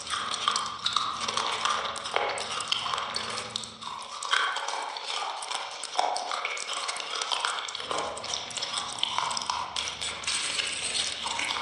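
Close-miked chewing: a dense, irregular run of small mouth clicks and smacks as food is eaten.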